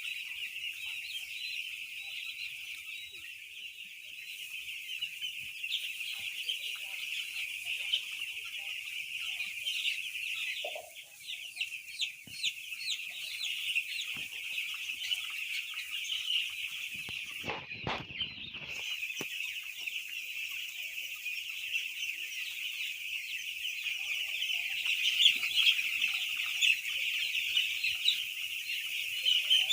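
A flock of young broiler chicks peeping together, a dense chorus of many high overlapping chirps that gets louder near the end.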